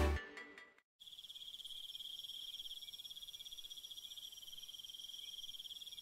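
Music fades out within the first second. After a short gap, a steady, high, rapidly pulsing insect trill runs on.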